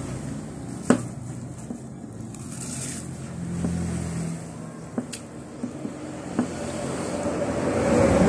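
A motor running steadily as a low hum, growing louder near the end, with a few sharp clicks, the loudest about a second in.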